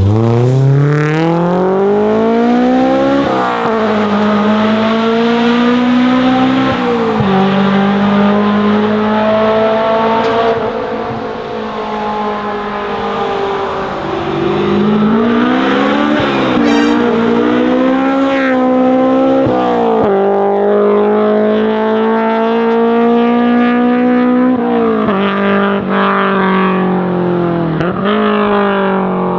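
Honda S2000's F20 four-cylinder engine through a JS Racing 70RR titanium exhaust, pulling hard through the gears. Its pitch climbs steadily, drops sharply, and climbs again many times over.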